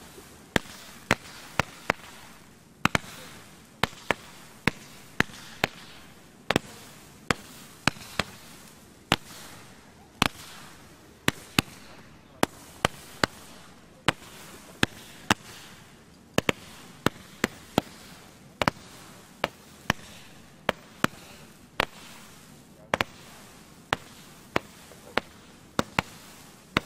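Power Pearls 96 firework firing its 96 coloured pearls one after another: a long run of sharp pops, irregularly spaced at about two a second, with a low hiss between shots.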